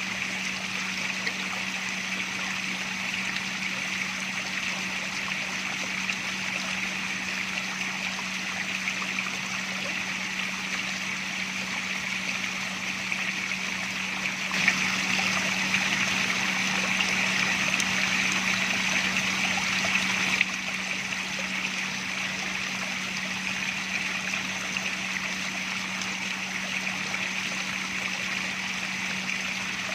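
Running water trickling and splashing steadily, with a steady low hum underneath. About halfway through the water sound turns louder for some five seconds, then drops back.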